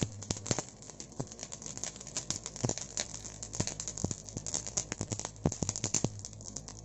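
Lumps of charcoal burning into embers, crackling and popping with many irregular sharp clicks.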